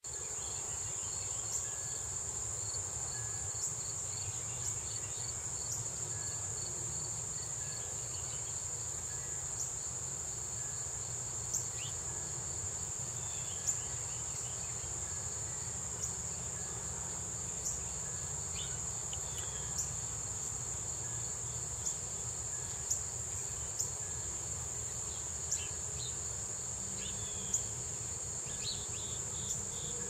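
Insect chorus: a steady high-pitched trill running without a break, with scattered faint clicks.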